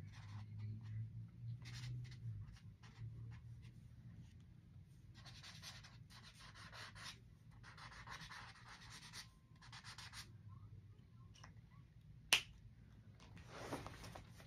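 Felt-tip marker strokes on sketchbook paper, in short separate passes, some about a second long, over a low steady hum. A single sharp click near the end is the loudest sound, followed by a brief rustle.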